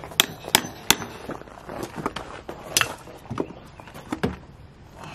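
Hammer knocking at a round cover plugged into a hole in house siding, held in by a ring-shank nail: three quick sharp knocks in the first second, then several more spaced out over the next few seconds.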